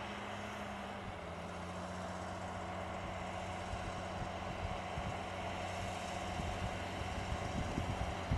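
Vehicle engine running steadily, its pitch dropping slightly about a second in, over a steady hiss.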